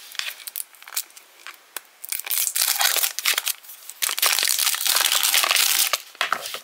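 A small cardboard blind box is torn open at its tear strip, with a few sharp tearing ticks. Then a crinkly plastic wrapper is crumpled as it is pulled out and handled, a dense crinkling that is loudest in the second half.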